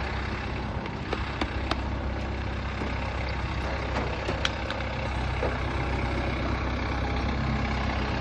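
Engine of the heavy tree-moving machine running steadily as the operator tilts the load, with a few sharp clicks and knocks about a second in and again near the middle.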